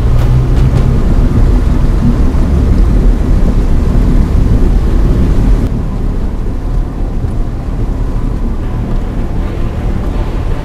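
Toyota Tacoma pickup driving slowly over a rough dirt trail, heard from a camera mounted on the outside of the hood: a steady low rumble of engine and chassis with wind on the microphone. A little past halfway the sound abruptly turns duller and a little quieter.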